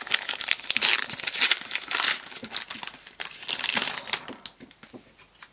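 Foil wrapper of a Pokémon trading card booster pack crinkling and tearing as it is opened. The crackling is dense for the first four seconds or so, then thins out.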